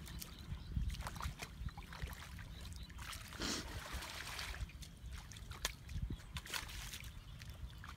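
Shallow muddy water splashing and trickling around someone wading in a flooded ditch, with scattered small splashes and one longer splash about three and a half seconds in.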